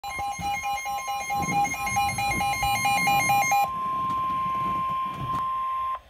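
Weather alert radio sounding a warning: fast pulsing alarm beeps, about five a second, over the steady 1050 Hz NOAA Weather Radio warning tone. The beeping stops a little over halfway through, leaving the steady tone alone until it cuts off near the end, just before the warning message is read.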